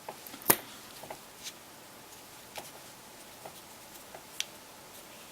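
Scattered light clicks and taps of small tools against a plastic phone housing as it is handled, with one sharper click about half a second in.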